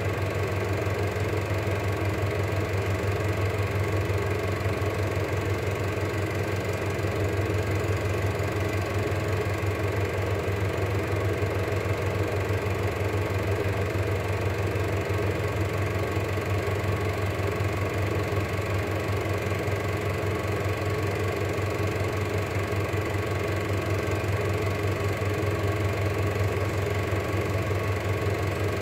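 Cine film projector running: a steady mechanical whirr with a strong low hum that does not change.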